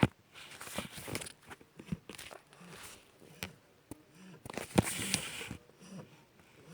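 Shar-pei puppy snoring and breathing noisily in its sleep, short rasping breaths repeating about once a second, with a few sharp clicks and rustles over it, the loudest at the start and near five seconds in.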